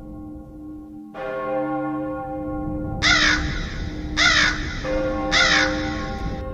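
Three crow caws, about a second apart, over a slowly tolling bell that is struck again about a second in: a graveyard sound effect.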